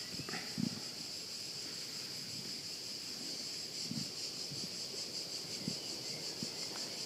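Steady high chirring of crickets, with a few faint, short low sounds about half a second, four and five and a half seconds in.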